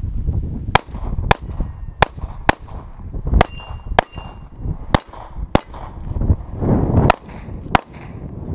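Glock 21 .45 ACP pistol firing about ten shots in quick pairs, with steel targets clanging and ringing when hit.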